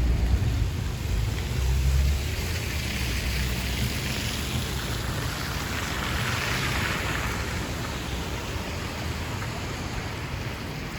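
Outdoor street ambience: wind rumbling on the microphone for the first couple of seconds, then a steady rushing hiss that swells to its loudest a little past the middle and slowly fades.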